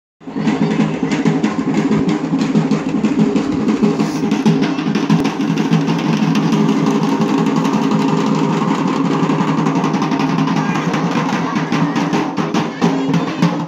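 Several double-headed drums beaten fast and continuously to accompany kavadi dancing, over a steady held tone.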